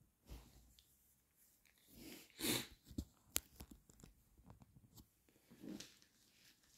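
Low-level handling sounds from a person holding a phone and TV remote: a short breathy rush about two and a half seconds in, the loudest sound, then a sharp click and several smaller clicks over the next two seconds, and another short breathy rush near the end.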